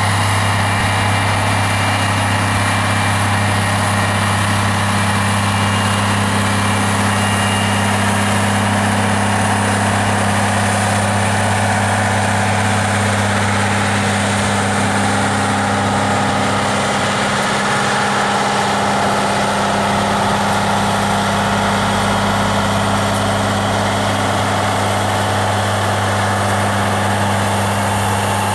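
Diesel engines of a Loram rail grinder train running in a steady, unchanging drone as the train passes slowly, with a constant low hum.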